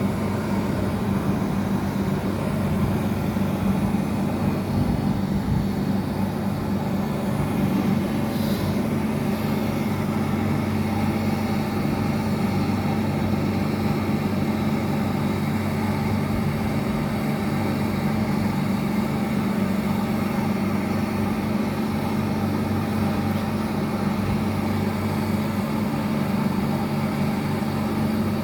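Steady hum of running air-conditioning machinery: an unbroken low drone with a strong steady tone, and a brief hiss about eight seconds in.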